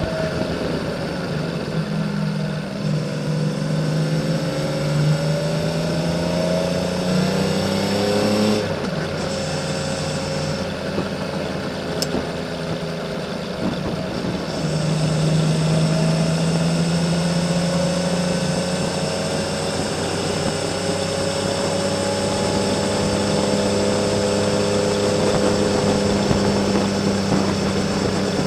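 Honda CBX 1000's inline-six engine with a Kerker six-into-two exhaust, under way. The engine note rises steadily for several seconds and drops abruptly about a third of the way in at a gearshift or throttle lift. It pulls and rises again from about halfway.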